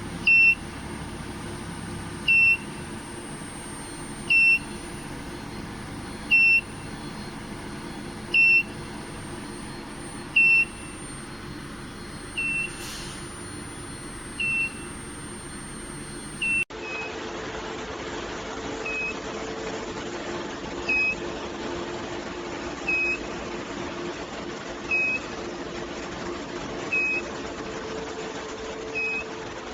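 Short, high electronic beep repeating about every two seconds over a steady machinery hum. A low steady hum joins in after a cut partway through.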